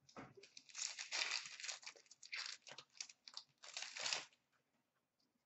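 A hockey card pack's shiny wrapper being torn open and crinkled by hand, in a series of irregular crinkling bursts that stop a little past four seconds in.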